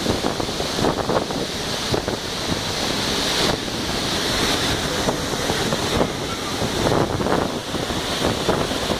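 Steady rush of a waterfall, with wind buffeting the microphone in uneven low gusts.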